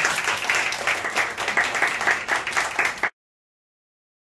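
Audience applauding with dense, continuous clapping that cuts off abruptly about three seconds in.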